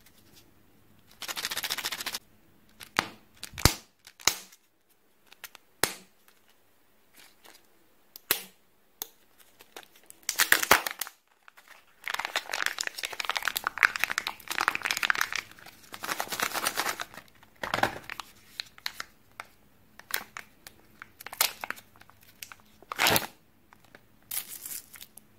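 Kinder Joy egg being opened by hand: foil and plastic packaging crinkling and tearing in several long stretches, with sharp single plastic clicks and snaps between them.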